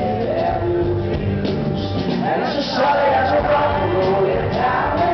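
Live rock band with an orchestral string section playing a song, a male voice singing over electric and acoustic guitars, bass and drums, recorded from within the audience.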